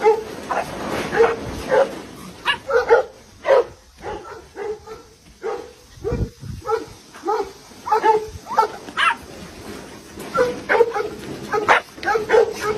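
Caged dogs barking in quick, repeated short barks, with a dull low thump about six seconds in.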